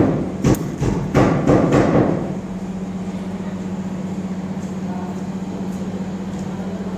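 A run of sharp knocks over the first two seconds, then a steady low hum from a TIG welding arc on stainless steel.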